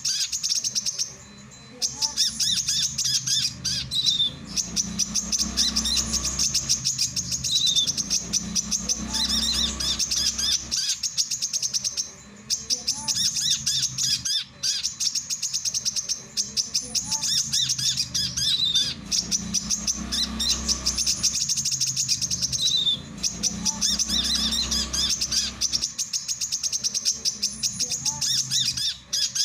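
Male brown-throated sunbird (kolibri kelapa) singing: long runs of rapid, high chipping notes, broken by short pauses every few seconds.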